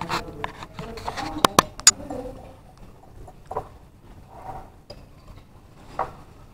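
Metal cutlery clinking and scraping on a ceramic plate, with three sharp clinks in quick succession about a second and a half in. Faint background voices.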